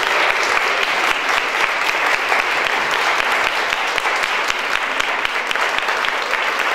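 Audience clapping, a steady even applause from a small crowd in a room.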